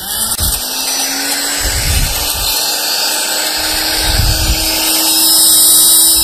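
Countertop blender motor running hard and steady, pulping a thick vegetable mixture; its pitch climbs a little in the first second and then holds, with a couple of dull low thuds from the load shifting in the jar. The batch is too small to blend evenly and is being flung onto the jar walls.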